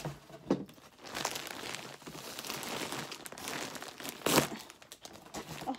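Plastic wrapping bag crinkling and rustling as it is handled and pulled open, with a few sharp crackles, the loudest about four seconds in.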